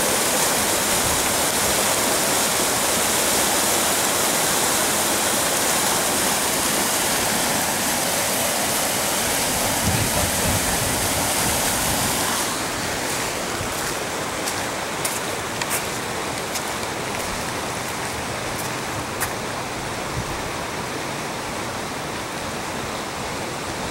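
Floodwater rushing down a desert wash, a steady roar of water. About twelve seconds in it gives way to a softer, duller steady hiss with a few sharp ticks.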